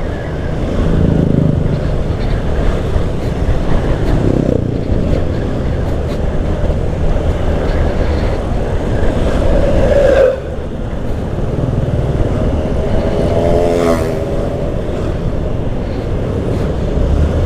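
Yamaha Filano scooter riding at road speed: a steady engine hum mixed with rushing wind and traffic noise. A tone rises and cuts off sharply about ten seconds in, and a short wavering tone sounds a few seconds later.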